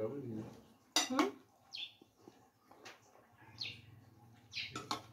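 Metal serving spoon clinking and scraping against a bowl and plate as beans are dished out, loudest about a second in and again near the end. A bird gives short falling chirps several times.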